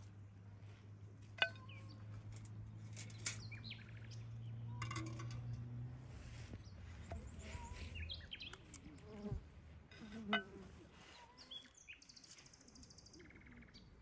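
Outdoor ambience of birds chirping, with a few sharp knocks and a low steady hum that fades out about two-thirds of the way through; a brief high buzz near the end.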